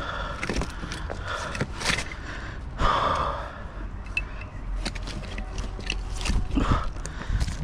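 Irregular knocks, clanks and scrapes of rusty scrap metal being handled and pulled off a neodymium fishing magnet.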